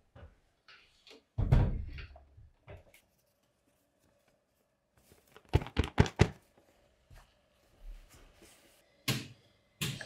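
Household handling noises: a heavy thunk about a second and a half in, as a sewing machine is set down on a wooden table, then a quick run of about five sharp taps midway and two knocks near the end as fabric and an iron are handled on an ironing board.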